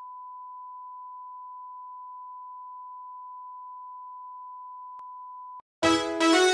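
Steady, high-pitched TV colour-bar test tone, a pure beep near 1 kHz. It cuts off suddenly about five and a half seconds in, and music for an animated nursery rhyme starts just after.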